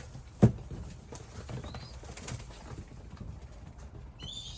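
Young racing pigeons moving and flapping in a loft, with a sharp knock about half a second in and a brief high squeak near the end.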